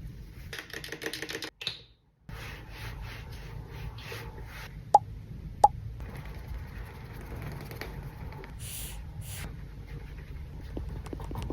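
Skincare products being handled and applied: quick scratchy rubbing strokes, two sharp clicks about five seconds in, and a short hiss near nine seconds.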